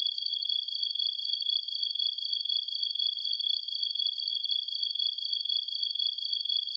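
Late-summer night chorus of insects, such as crickets, trilling steadily and without pause at two high pitches.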